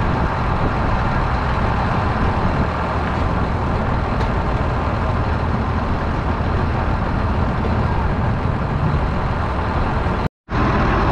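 Tractor engine and drivetrain running steadily under load while pulling a planter across a field, heard as a constant low rumble. The sound cuts out for a moment near the end.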